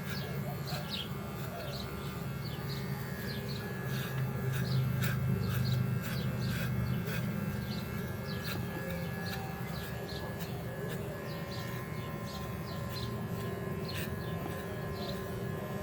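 Cordless pet hair clippers running with a steady low hum while shaving a dog, as birds chirp over it with short, high, repeated calls.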